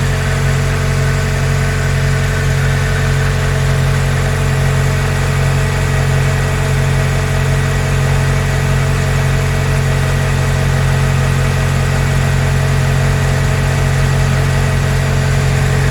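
Nissan Serena C23 engine idling steadily at a fast cold idle, a little over 1000 rpm.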